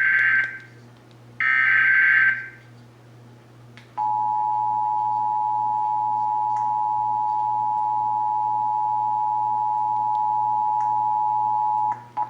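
Emergency Alert System tones: two short end-of-message data bursts, then, after a pause, the steady two-tone EAS attention signal, which sounds for about eight seconds and cuts off abruptly near the end.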